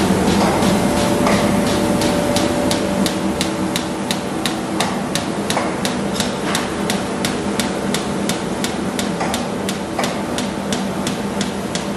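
CHM-1700II high-speed paper sheeter cross-cutting four rolls of 64 gsm coated paper at 203 cuts a minute. Its knife gives sharp, even clicks about three times a second over a steady machine hum.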